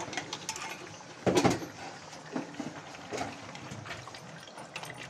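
Metal clanks and clinks of a steel container and utensils knocking against a large metal cooking pot as ground masala paste is tipped in, with one louder clank a little over a second in and lighter knocks after it.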